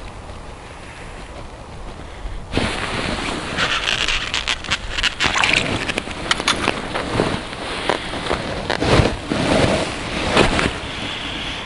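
Close rustling and scraping of winter clothing against the microphone, with many small knocks and clicks. It starts suddenly a couple of seconds in as the angler reaches out and picks a caught roach up off the snow.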